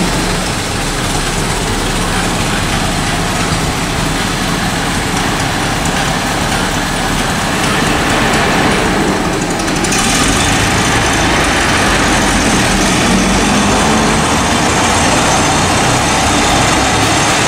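1926 Ford Model T's four-cylinder engine running as the car drives off at low speed.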